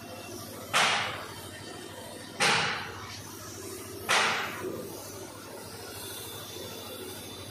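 Gravity-feed compressed-air paint spray gun hissing in three short bursts about a second and a half apart, each starting sharply and fading over about half a second as the trigger is pulled and released.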